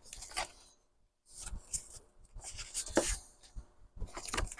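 Old paper and book pages being handled and shuffled: intermittent rustling with light clicks, the sharpest about three seconds in.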